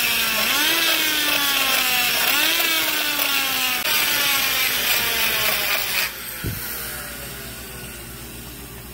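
Die grinder with a long-shank burr cutting the cast-iron combustion chamber wall beside the intake valve of a Chrysler 302-casting cylinder head, deshrouding the valve. Its whine jumps up in pitch and then sags under load, again and again, then stops about six seconds in and winds down.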